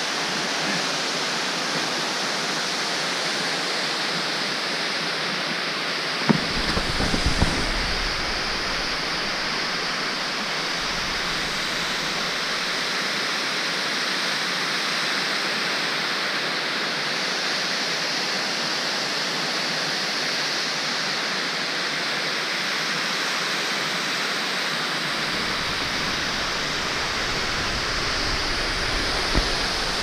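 Steady, even rush of a tall waterfall plunging down a rock face into a rocky gorge. Short spells of low rumble with a few sharp knocks break in about six seconds in and again near the end.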